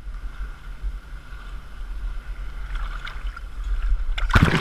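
Waterfall and sea water rushing with a strong low rumble, growing louder; music comes in suddenly near the end.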